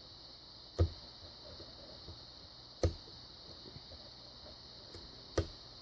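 Sharp clicks from a Federal padlock's pins setting under a lock pick and tension wrench: three distinct clicks, about a second in, near three seconds and just past five seconds, with fainter pick ticks between. The picker takes the clicks for pins 5 and 6 setting.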